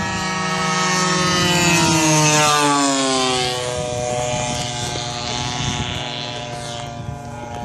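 Radio-controlled A6M Zero and F6F Hellcat warbird models making a low pass, their propeller engines droning. The drone grows loudest about two seconds in, then drops in pitch and fades as they go by.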